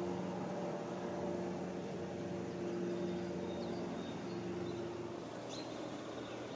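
Outdoor ambience with a distant engine humming steadily, fading out about five seconds in, and a couple of faint high bird chirps in the second half.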